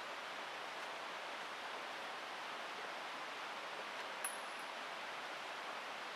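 Steady outdoor hiss with no pitch or rhythm, and one faint click about four seconds in.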